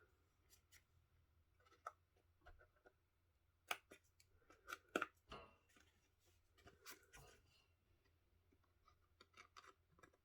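Scissors cutting card: faint, scattered snips, a few quick ones together around the middle.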